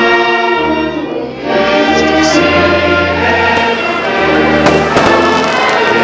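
Music played for a fireworks display, with sustained choral-sounding chords. About halfway through, firework bangs and crackles start to break in, growing more frequent toward the end.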